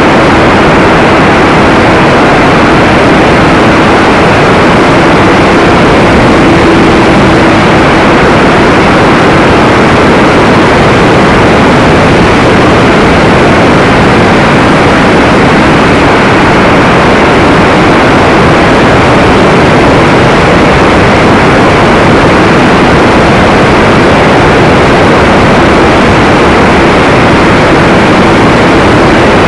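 Engine and propeller of a T-28 airplane in flight, heard from a camera mounted under its belly: a loud, steady rush of engine, propeller and wind noise, with a faint steady hum through the first several seconds.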